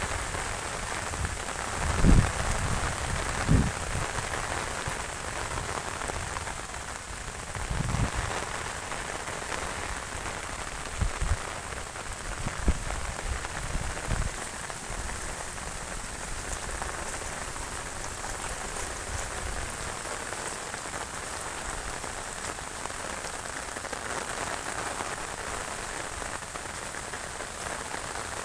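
Heavy monsoon rain falling steadily, with a few short low thumps in the first half.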